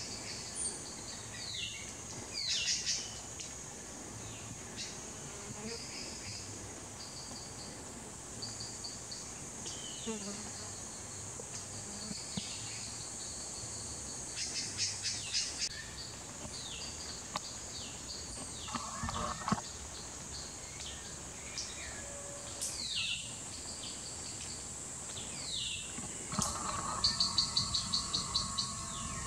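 Forest birds calling: a few sharp falling whistles and several short bursts of rapid trilled notes, the last and loudest near the end. A steady high-pitched insect buzz runs underneath.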